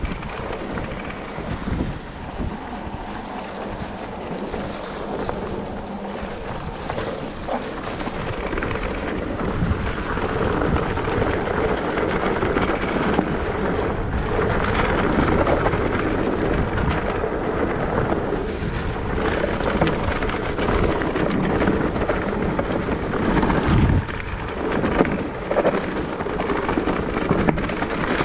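Mountain bike riding along a dirt track strewn with fallen leaves: tyres rolling over the leaves and dirt with the bike rattling, and wind rumbling on the microphone. It gets louder from about a third of the way in.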